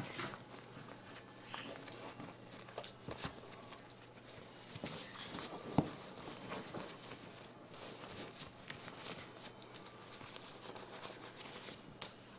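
Soft rustling and scuffling of a baby cinnamon capuchin monkey tussling with a person's hand on a shaggy rug, with scattered small clicks and knocks, the sharpest about six seconds in and another near the end.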